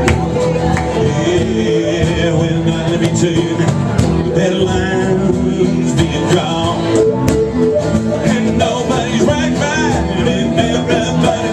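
Live band playing a song loudly with guitars and drums, a voice singing in places.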